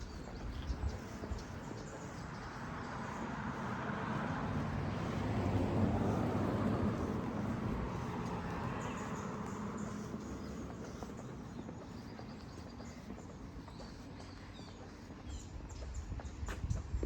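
A motor vehicle passing along the street, its sound swelling over a few seconds and then slowly fading away. Footsteps can be heard near the start and again near the end.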